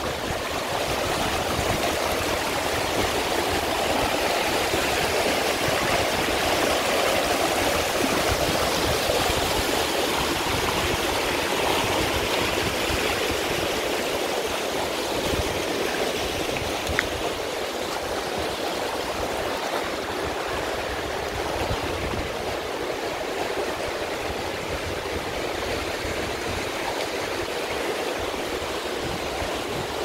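Clear mountain river rushing and splashing over rocks and boulders in shallow rapids: a steady rush of water, a little louder in the first half, with one brief click a little past halfway.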